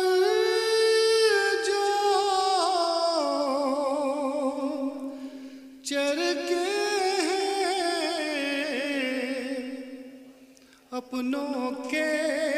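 A man singing an Urdu verse in tarannum, the chanted melody used for poetry at a mushaira, with no instruments. He holds long, wavering notes in two drawn-out phrases that each fade away, then starts a new phrase after a short breath near the end.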